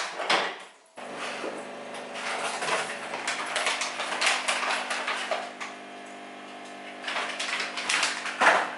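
Plastic food packaging rustling and crinkling as groceries are handled and put into a fridge, with packets set down. A steady hum runs underneath, starting abruptly about a second in.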